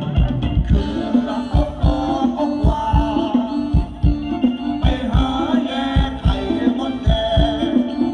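Live band music for a Thai ramwong circle dance: a melody over a fast, steady kick-drum beat.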